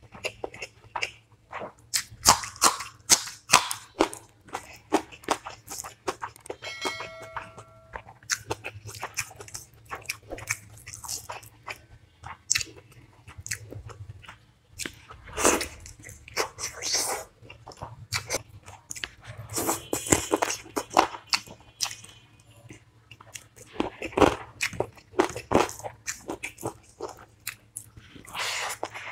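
Close-up eating sounds: biting and chewing through a meal of chicken curry, rice, dal, cucumber and green chili, in quick sharp clicks and smacks.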